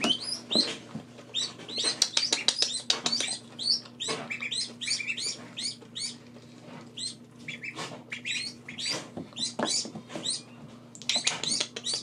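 Young Khaki Campbell ducklings, about two weeks old, peeping: many short, high calls coming in overlapping clusters, with scattered clicks among them and a faint steady low hum underneath.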